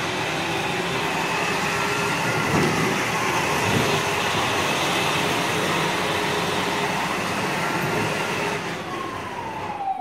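Electronic siren of a battery-powered ride-on toy fire truck, rising and falling slowly, over the steady whir of its electric drive as it rolls across concrete.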